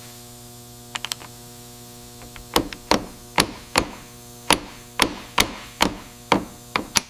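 Brass punch tapping on a small steel rifle part seated in a metal receiver: about a dozen sharp metallic taps, roughly two a second, starting about two and a half seconds in, each with a short ring. A few light clicks come about a second in, and a steady electrical hum runs underneath.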